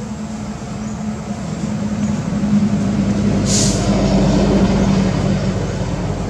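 A motor vehicle's engine rumbling, growing louder to a peak around the middle and then easing off, with a short hiss about three and a half seconds in.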